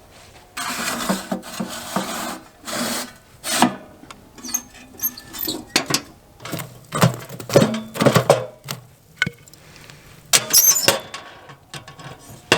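Irregular handling noises: a string of knocks, clicks and scraping bursts, the clatter of things being picked up and set down.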